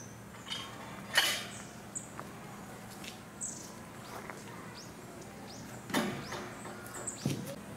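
Outdoor ambience with short, high bird chirps now and then, and two sharp knocks, about a second in and about six seconds in.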